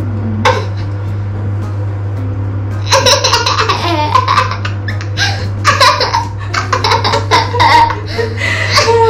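A young boy laughing in repeated giggling bursts, ticklish as his hair is trimmed around his ear. The laughter begins about three seconds in.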